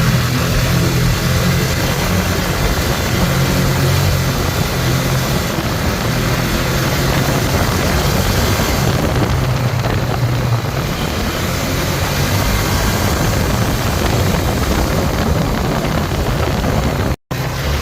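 ATV engine running steadily under a constant rush of noise. The sound drops out completely for a split second near the end.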